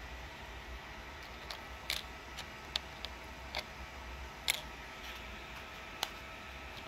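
Handling noise while a camera is moved over small 3D-printed plastic parts: about eight light clicks and taps at uneven intervals, over a faint steady machine hum.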